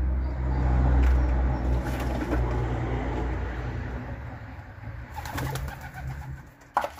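Racing pigeons cooing, over a steady low hum that fades out about halfway through; a single sharp knock near the end.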